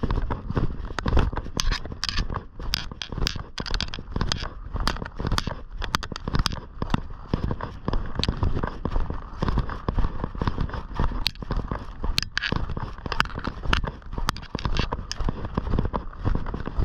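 Footsteps crunching on snow, an irregular run of sharp crackles, over an uneven low rumble of wind on the microphone.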